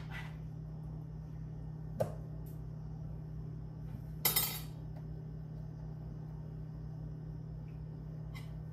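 Kitchen utensil knocking against dishes while food is plated: a sharp clink about two seconds in and a louder, brief clatter about four seconds in, over a steady low hum.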